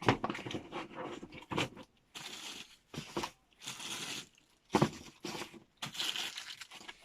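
Packaging being handled and torn open: a run of crinkling, tearing rustles broken by sharp clicks, as an item is unwrapped.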